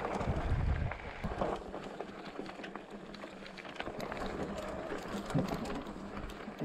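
Electric mountain bike riding over a rocky dirt trail: tyres crunching on gravel, with many small clicks and rattles from the bike. Wind rumbles on the microphone for about the first second.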